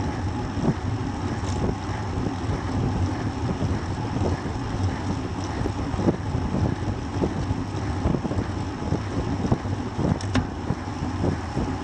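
Wind rushing over the microphone of a camera on a road bicycle riding at about 33 km/h, with a steady hum of tyres on asphalt and small knocks and rattles from the road surface.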